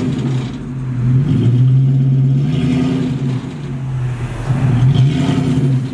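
Rollback tow truck's engine running to drive the winch, its pitch rising and falling several times as the car is pulled up onto the flatbed.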